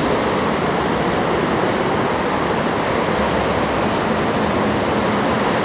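Steady rush of dense multi-lane freeway traffic, the tyre and engine noise of many cars blending into one even roar.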